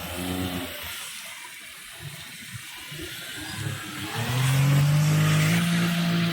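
Maruti 800's small three-cylinder petrol engine running under throttle. It drops back to a low idle about a second in, then revs up loudly about four seconds in and holds steady, with one step up in pitch.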